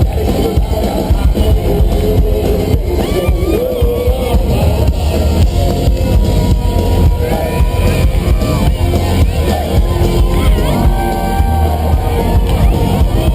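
Loud live country-rock band playing, with drums and guitar under a voice singing, heard through a concert PA.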